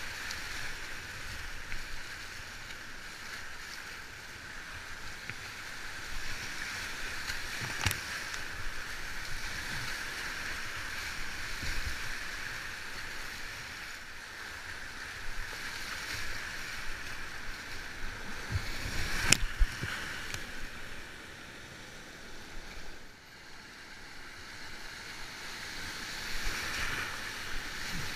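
Steady rushing of a flooded creek's whitewater rapids heard from a kayak running them, with paddle splashes. Two sharp knocks come about 8 and 19 seconds in.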